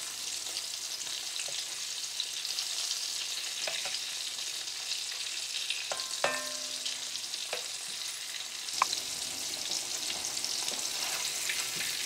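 Breadcrumb-coated shrimp deep-frying in hot oil, a steady sizzle, with a few clinks of a metal slotted spoon against the pan as the shrimp are turned over. The loudest clink rings briefly about six seconds in.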